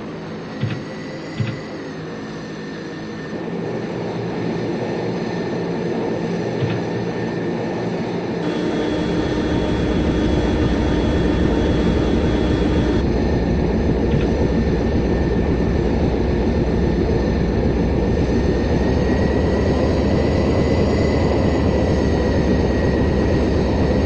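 Jet airliner engines: a steady high whine over a rumbling noise that builds over the first several seconds and then holds loud. A few sharp clicks come in the first two seconds.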